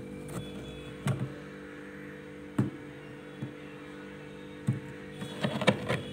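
Steady hum of the freezer running, with a few soft crunches and knocks as loose freezer frost is handled in a stainless steel bowl. The crunches come singly every second or so, then in a quick cluster near the end.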